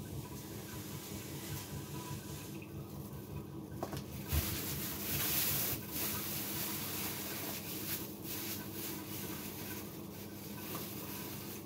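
Household water filter gurgling, its excess water running off in a steady trickle. A knock comes about four seconds in, followed by a louder hiss for about a second and a half.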